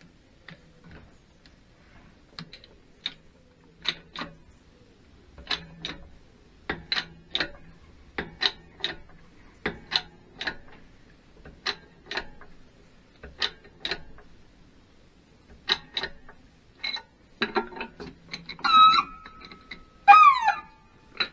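Hand-pumped hydraulic shop press working, with sharp clicks, single or paired, every second or so as its ram presses a new bearing into a BSA Bantam D3 crankcase; two short squeaks near the end.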